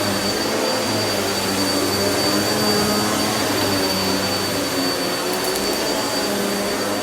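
Vacuum cleaner running steadily on a floor, a constant rush of suction with a high motor whine and a low hum that wavers slightly, and a few faint ticks about five seconds in.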